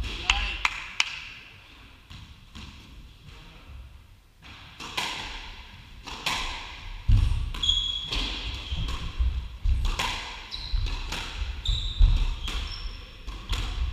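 Squash rally: sharp knocks of the ball off the rackets and the court walls, with thuds of footsteps and short high squeaks of shoes on the wooden court floor. A few quieter seconds near the start, then the strikes pick up again about five seconds in.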